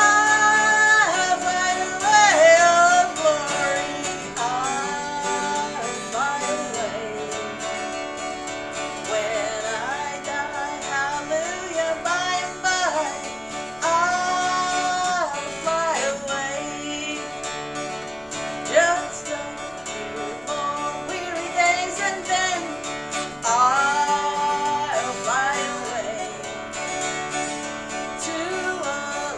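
A woman singing a country-folk song and strumming an acoustic guitar along with it, in long held sung phrases.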